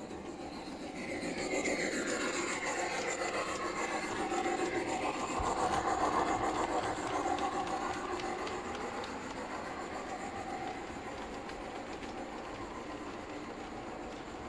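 LGB garden-scale model train running along the track: the locomotive's motor and gears whirring and the wheels clicking over the rail joints, growing louder as the train passes close, loudest about six seconds in, then easing off.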